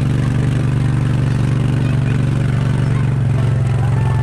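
Small engine running steadily at an even speed, pulling a barrel-train ride of cow-painted carts, with a constant low drone as heard from a seat in one of the towed carts.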